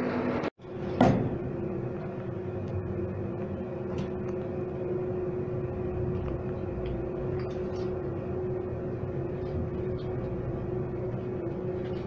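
Passenger lift car travelling upward, heard from inside the car: a steady hum with one held tone. About a second in, after a brief dropout, a single sharp knock; a few faint clicks follow now and then.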